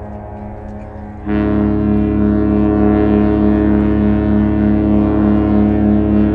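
Ship's horn sounding a steady chord of several tones together. It is much weaker for about the first second, then sounds again at full strength and is held unchanged.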